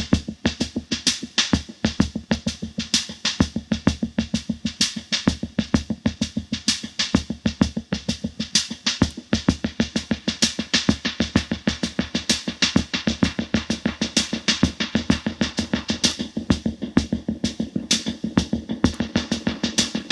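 Vintage Mach rhythm box drum machine playing a fast, steady rhythm pattern through an Elk EM-4 tape echo unit.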